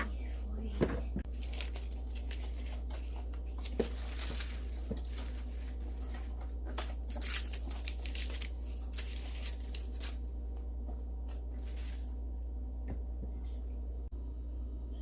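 Rustling, crinkling and tearing handling sounds with a few sharp clicks, busy for about the first twelve seconds and then quieter, over a steady low hum.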